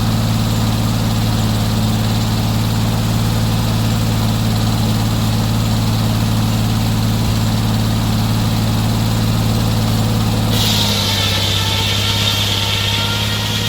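Sawmill engine running steadily. About ten seconds in, a high-pitched whine and hiss join in and hold.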